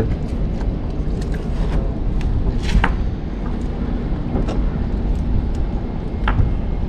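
Steady low rumbling noise with a few light clicks and knocks.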